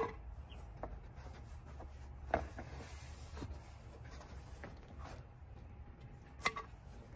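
Cardboard packaging and cedar boards being handled while a boxed raised garden bed is unpacked: scraping and rubbing with a few sharp knocks, the loudest right at the start and others about two and a half and six and a half seconds in.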